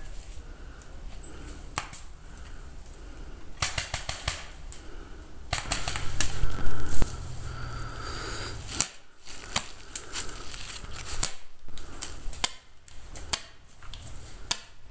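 Paintball markers firing: sharp pops, some single and some in quick bursts of several shots, scattered throughout.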